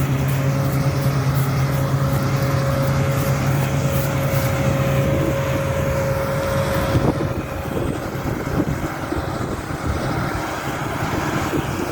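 Combine harvester running in the field, a steady engine drone with a whine over it. About seven seconds in the drone and whine drop away and the sound turns quieter, rough and rustling.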